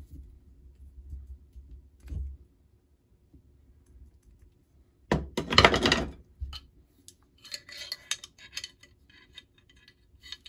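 Steel rifle parts being handled on a wooden workbench during disassembly of a Carcano M91: a few soft knocks, a loud rub lasting about a second about halfway through, then a run of light metallic clinks and clicks.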